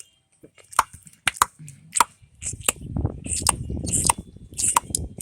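A person making a quick series of sharp clicks and taps, the "tappity tap", about two to three a second and uneven. A low rustling rumble runs under the clicks from about three seconds in.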